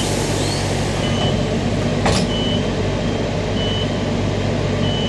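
Queensland Rail electric multiple unit standing at a platform with its doors open: a steady low hum from its equipment, with a short high beep repeating about once a second. A hiss fades out in the first second or so, and there is one sharp clunk about two seconds in.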